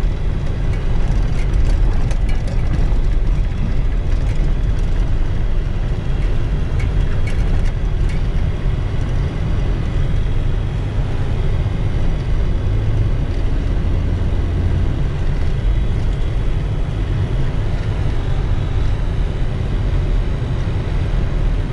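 A vehicle driving, with a steady low engine and road rumble and no change in pace.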